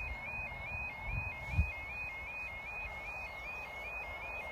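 Level crossing audible warning alarm sounding a steady, repeating high two-note warble, about two and a half cycles a second, the warning given while a train approaches. Low buffets of wind on the microphone come in over it about a second and a half in.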